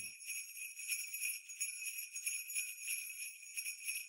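Jingle bells shaking in a continuous, bright, tinkling jingle.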